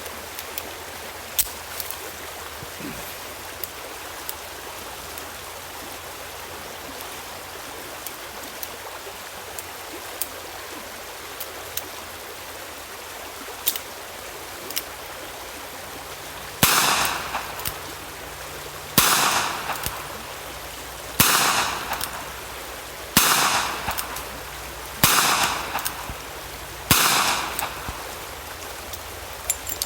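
Six shots from a 4-inch Ruger Redhawk .45 revolver firing jacketed hollow points, about two seconds apart in the second half, each trailing off in an echo. A few faint clicks come before the shots, over a steady background hiss.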